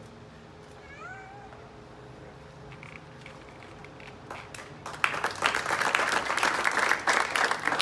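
Audience applause breaking out about five seconds in, after a few scattered claps. A short high call that rises and falls sounds about a second in.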